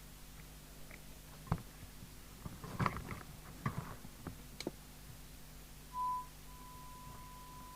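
Light clicks and taps of small tools and fingers working on a CB radio set, then a steady tone comes up about six seconds in: a brief louder beep settling into a quieter held tone, with a low mains hum underneath.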